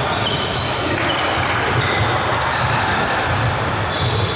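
Basketball game in a gym: a ball bouncing on the hardwood floor and short high squeaks of sneakers, echoing in the hall.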